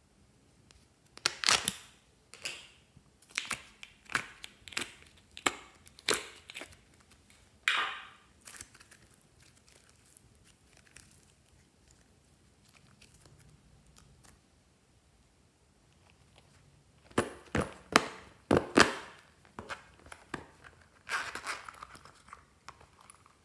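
Slime and its plastic containers being handled: containers opened and slime pulled and torn, giving clusters of sharp crackling, tearing sounds with a quieter stretch in the middle.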